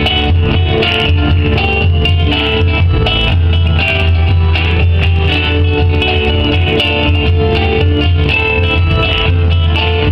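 Music played on guitar, plucked and strummed notes over a steady low bass tone.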